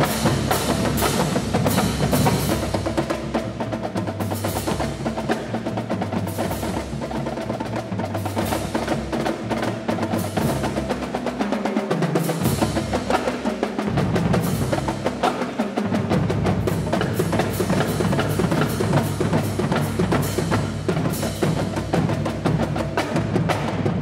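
Background music with a driving percussion beat over a bass line that steps between notes.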